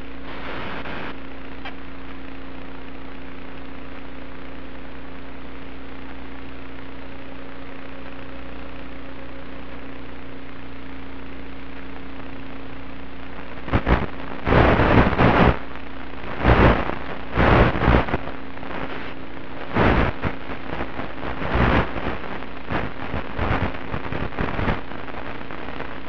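Hiss with a steady hum from an analog 1.3 GHz FPV video link's audio channel, recorded through the goggles' DVR. From about 14 seconds in, loud irregular bursts of static break in as the link picks up interference.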